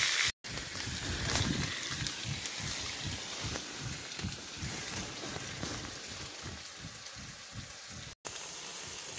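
Rustling and irregular low knocks from the camera being handled and moved, over a faint steady sizzle from the frying pan. The sound drops out completely twice, briefly, where the recording is cut.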